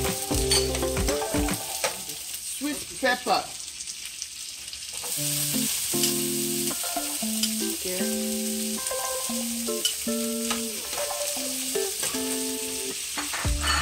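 Sliced onions, garlic and chopped red pepper sizzling in hot oil in a frying pan, with a metal spoon scraping and clicking as they are stirred; the sizzle grows louder about five seconds in. Background music with held notes plays underneath.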